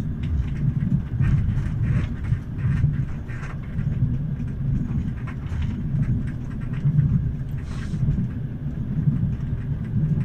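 Passenger train running, heard from inside the carriage: a steady low rumble from the wheels and carriage, with light knocks here and there.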